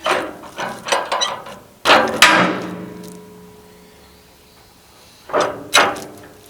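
Steel clanking on a manual bandsaw mill as a log is set against the log dogs: a quick run of knocks, then a heavy strike about two seconds in that rings on and fades, and two more clanks near the end.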